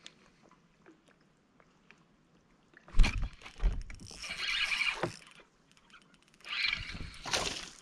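Two heavy knocks on a bass boat's deck about three seconds in, followed by two stretches of splashing and rustling as a bass hooked on a drop shot rig is fought beside the boat.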